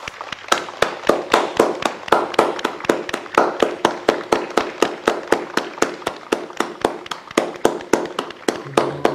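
People clapping their hands together in a steady rhythm, about four claps a second, as applause.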